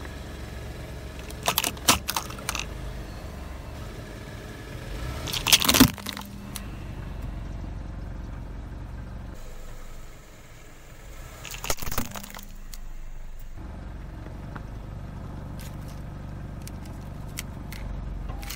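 A car tyre rolls onto a small plastic USB desk fan on asphalt, and the fan's plastic cage and stand crack and crunch under the weight. There are a few sharp cracks about two seconds in, the loudest crunch at about six seconds, and another near twelve seconds, over the low rumble of the car.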